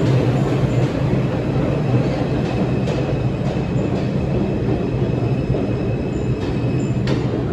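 NYC subway 2 train of R142 cars moving along the platform: a loud, steady rumble of wheels and motors with a faint steady high whine and a few sharp wheel clicks over the rail joints.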